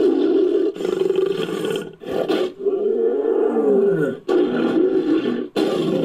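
Designed creature roars, built from mixed Homotherium big-cat and Megalosaurus roar sound effects: a string of about five roars, several sliding down in pitch as they end.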